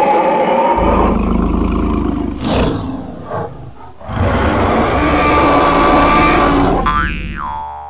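Cartoon dinosaur roars: two long, loud growling roars with a few shorter grunts between them. Near the end a falling, whistle-like tone comes in.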